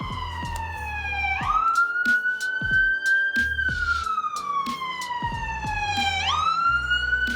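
Music with a steady beat and bass line, carrying a loud siren-like wail that slides slowly down in pitch and jumps quickly back up, twice, about every two and a half seconds.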